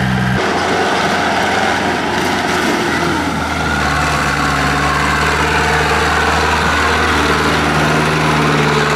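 Zetor tractor's diesel engine running steadily as the tractor drives along a dirt track. The sound changes abruptly about half a second in.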